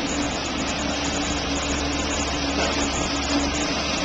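Chevrolet LT1 V8 running steadily under dynamometer test, a loud even engine noise with a deep low rumble that fades shortly before the end. The engine is badly worn, with bad rings letting heavy blow-by through.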